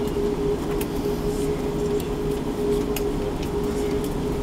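Cabin noise inside an Airbus A340-600 taxiing after landing: a steady rumble with a constant hum, and scattered light ticks and rattles.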